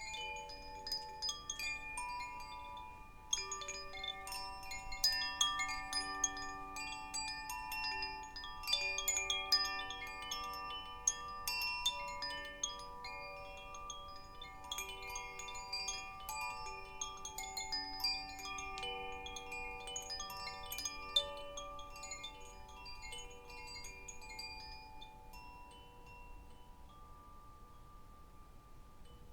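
Chimes played in a dense, shimmering cascade: many quick strikes, each leaving a ringing tone at its own pitch, overlapping one another and thinning out near the end.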